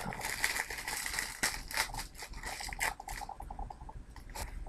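Plastic shrink-wrap crinkling and tearing as it is pulled off a DVD case, with sharp clicks of the handled plastic case. The crinkling dies down after about three seconds, leaving quieter handling and one more click near the end.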